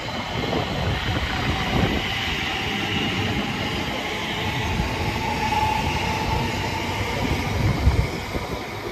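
A Greater Anglia Class 720 electric multiple unit passes at speed: a continuous rush of steel wheels on rail, with low thuds from the wheels and a faint steady whine. The sound peaks about eight seconds in, then eases as the train draws away.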